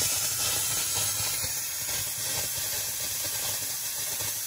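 Kitchen tap spraying a steady hiss of mixed water and compressed air. A compressor is blowing the last water out of the cold-water line so the pipes won't freeze over winter.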